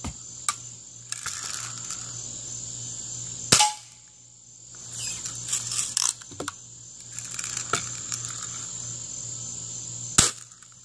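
Daisy BB gun firing several times, a few seconds apart, each shot a sharp crack at the tin-can target; the loudest comes about three and a half seconds in. Crickets chirr steadily behind.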